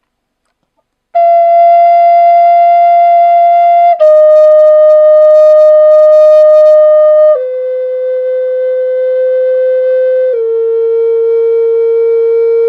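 Redwood flute playing long held notes that step down in pitch one after another, each held about three seconds, starting about a second in. It is the second of two flutes from the same maker, one tuned to A432 and the other to A440.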